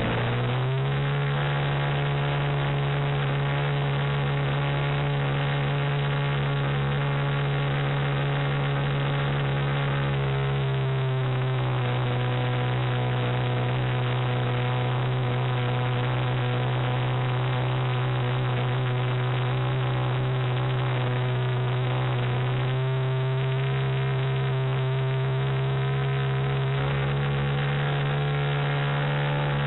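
Single-cylinder glow-fuel model airplane engine and propeller running at high throttle, heard close up from the onboard camera. The engine note rises in the first second as the throttle opens, settles slightly lower about ten seconds in, then rises again a little past twenty seconds.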